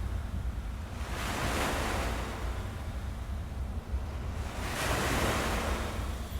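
Ocean waves on a beach: a steady low rumble with two waves washing in, one about a second in and another about two-thirds of the way through.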